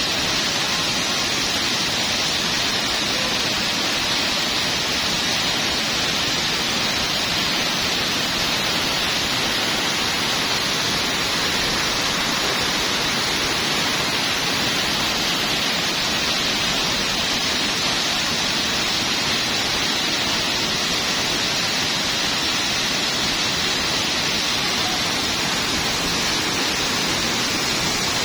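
A waterfall pouring in a steady, unbroken rush of water.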